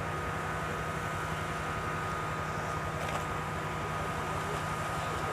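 A steady mechanical hum with an unchanging pitch, like an engine running at constant speed, over outdoor noise.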